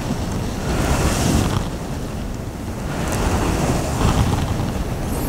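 Rushing noise of ocean surf, swelling about a second in and again about four seconds in.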